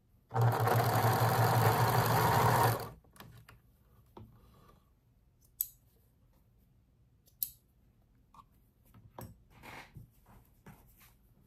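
Electric domestic sewing machine stitching a seam in one steady run of about two and a half seconds, then stopping. After it, fabric is handled quietly, with two sharp clicks a couple of seconds apart.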